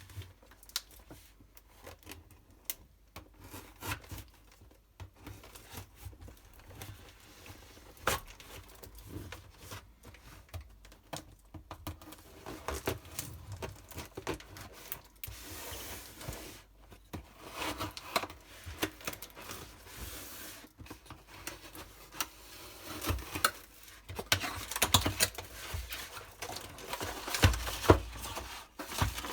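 A parcel being opened by hand: packaging torn and crinkled, with scattered clicks and knocks of handling. One longer tearing rustle comes about halfway through, and the handling gets busier and louder near the end.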